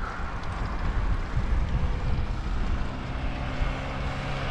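Wind rumbling on a bicycle-mounted action camera's microphone while riding, with a motor vehicle's steady engine hum coming in about three seconds in.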